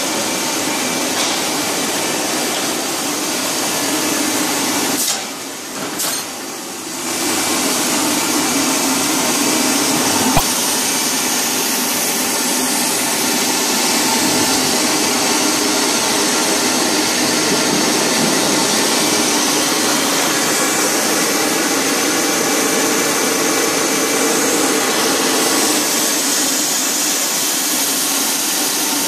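Swimming-pool hose extrusion line running: a loud, steady machinery noise with a faint hum in it. The noise dips briefly about five seconds in, and there is a single sharp click about ten seconds in.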